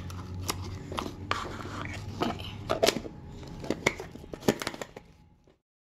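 Homemade slime squished and pressed by hand into a small plastic tub, making irregular little clicks and squelches; the sound fades to silence near the end.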